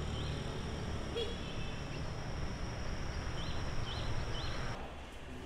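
Outdoor ambience: a steady low rumble with a thin high tone above it, and birds chirping a few short notes, a couple near the start and three in quick succession past the middle. The ambience cuts off abruptly near the end.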